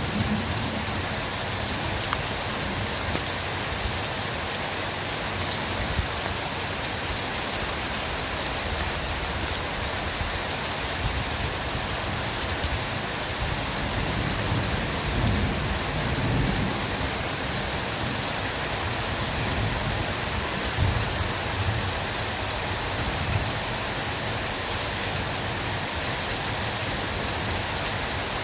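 Steady heavy rain falling in a forest, an even hiss, with low rumbles of distant thunder in the middle.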